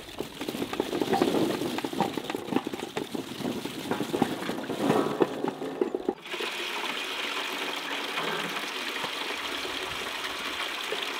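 Handfuls of garlic bulbs rustling and clattering in a metal basin as they are handled and tipped in from a metal tray. About six seconds in this gives way suddenly to water running steadily from a tap into a metal bucket.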